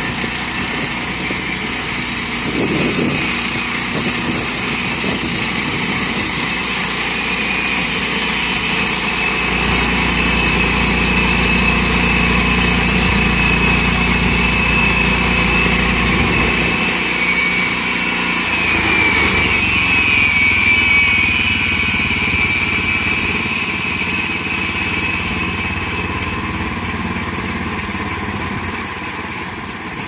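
A portable band sawmill's 14 HP Kohler engine runs steadily while the band blade cuts lengthwise through a log. A high whine rises over the engine through the middle of the cut, and the low engine note gets heavier for a stretch while the blade is under load.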